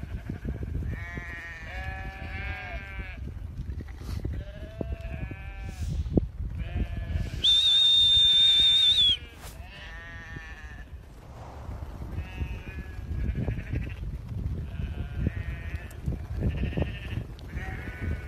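A flock of sheep bleating as they run, many overlapping calls one after another. Near the middle, a loud, high, steady whistle is held for about a second and a half: a shepherd's whistle to the herding dog.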